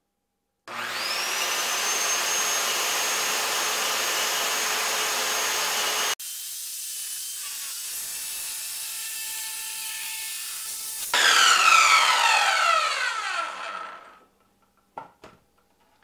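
Ryobi corded 7-1/4 inch circular saw with a Diablo laminate blade spinning up with a rising whine and cutting through a stack of thin plastic laminate sheets. The sound drops abruptly about six seconds in. About eleven seconds in it is at its loudest, then the motor winds down with a falling whine over a few seconds.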